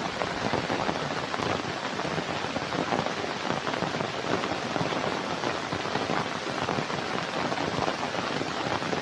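Heavy rain falling steadily, a dense, loud patter of countless drops.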